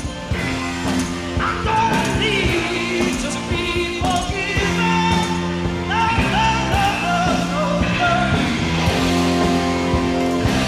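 Live rock band music: a male lead voice singing over electric guitar, bass and drums.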